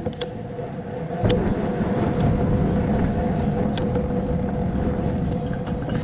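A machine running: a low rumble with a steady hum that comes on about a second in, with scattered clicks.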